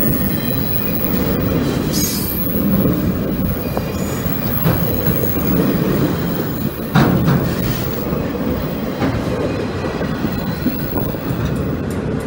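Empty railroad flat cars of a long freight train rolling past at close range: a steady rumble and clatter of steel wheels on the rails, with faint wheel squeal and a sharp clank about seven seconds in.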